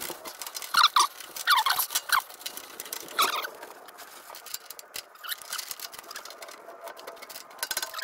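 Short, high squeaks and light clicks from a gloved hand twisting and working the rubber hose coupling and clamp on the lower pipe of a Hitachi EX120-2 excavator's hydraulic oil cooler. The squeaks come in the first few seconds, then small taps and clicks follow.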